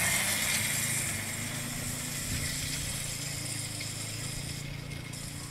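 A child's quad bike's motor running steadily as it drives off across grass, growing fainter as it moves away.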